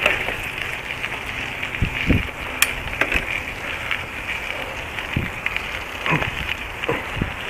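Steady rushing noise with a few dull thumps and one sharp click, from a handheld camera moving quickly along a dirt trail: wind and handling noise on the microphone.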